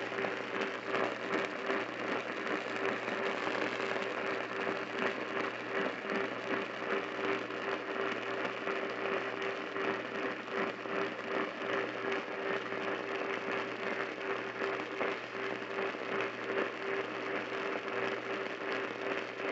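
Weak, distant AM radio station buried in heavy static and crackle, with a steady low whistle running under it: very poor long-distance AM reception.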